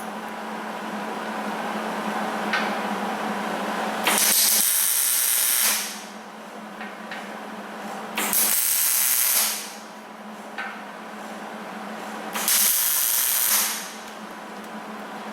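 Small 110-volt wire-feed welder laying three short tack welds on quarter-inch steel flat stock, each a loud sizzling hiss lasting about a second and a half, with a few seconds between them. A steady hum runs underneath.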